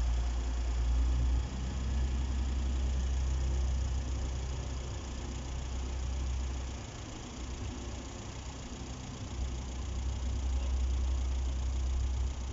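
Diesel engine of a TransPennine Express Class 185 multiple unit giving a steady low rumble as the train runs slowly away. The rumble dips about seven seconds in and returns a couple of seconds later.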